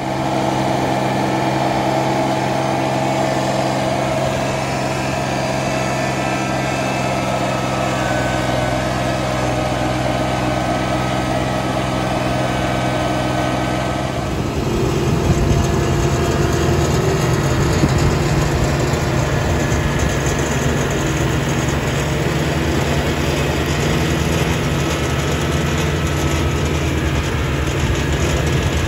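John Deere 755 compact tractor's three-cylinder diesel engine running steadily at working speed while mowing with its deck engaged. About halfway through the sound gets a little louder and deeper.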